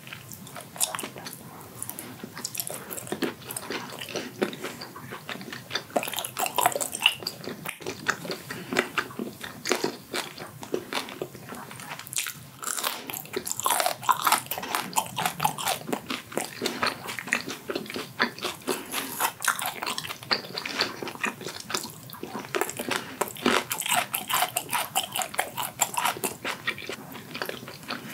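Close-miked eating sounds of a person biting and chewing steamed whelk meat: dense, irregular sharp clicks and smacks from the mouth.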